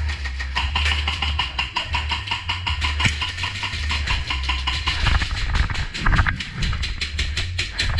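Airsoft guns firing: a quick, steady string of sharp clicking shots, several a second, over a low rumble.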